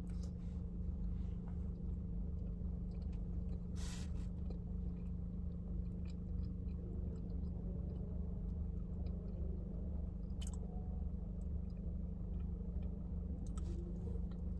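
A person chewing a mouthful of baklava, with a few short crunchy clicks, one about four seconds in, one around ten seconds and one near the end, over a steady low hum. The pastry has gone soft and a little tough to chew rather than crunchy.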